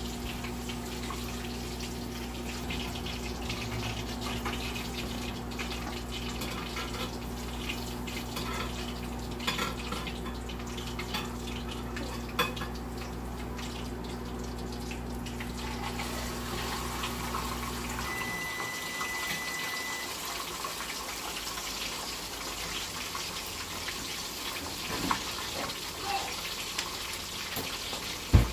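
Fish frying in hot oil in a frying pan, a steady crackling sizzle with scattered pops. A low steady hum under it stops about two-thirds of the way through, and there is one sharp knock near the end.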